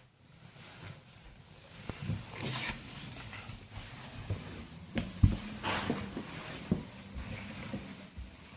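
Plastic Lego Technic models being handled and moved, with irregular clicks, knocks and short rustles over a faint low hum.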